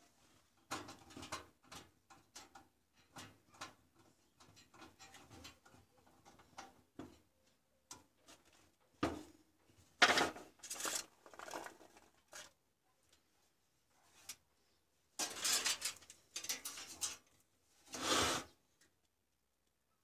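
Hands working inside a metal desktop PC case and handling its wiring: irregular clicks, taps and light knocks, with several louder rustling, clattering bursts about nine to eleven seconds in and again near the end.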